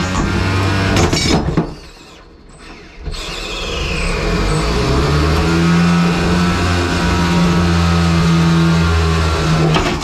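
A 3 lb combat robot's electric motors whining. The whine drops away briefly about two seconds in, then rises and holds a steady pitch before cutting off just before the end.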